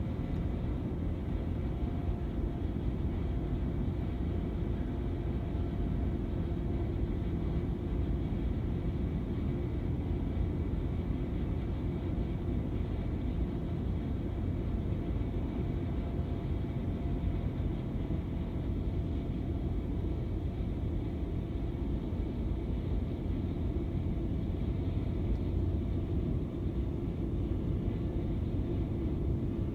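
Skid steer engine running steadily while it drives a snowblower attachment, a constant low rumble with a faint steady hum over it.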